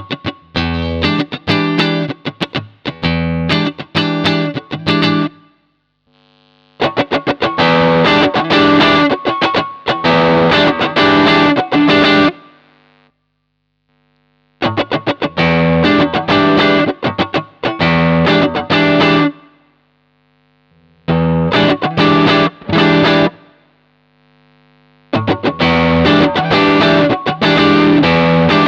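Electric guitar played through an overdrive pedal: distorted chords and riffs picked in five short phrases, with a held note ringing between phrases.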